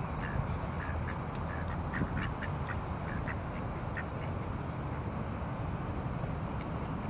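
Mallard ducks calling with short, soft quacks: a quick run of them in the first three seconds, then a few scattered ones. A steady low background rumble runs under them.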